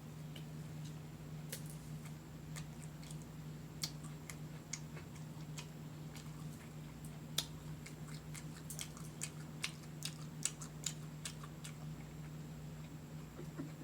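A person chewing food with wet mouth smacks and clicks at an irregular pace, coming thicker in the second half, over a steady low hum.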